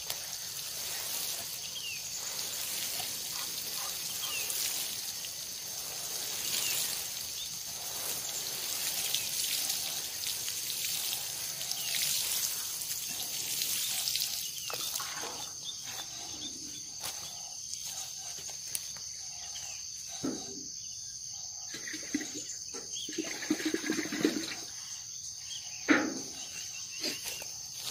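Water poured from a metal watering can, splashing onto leaves and bare soil, over a steady high insect chirring. After about fifteen seconds the pouring gives way to scattered knocks and rustles, with one sharp knock near the end.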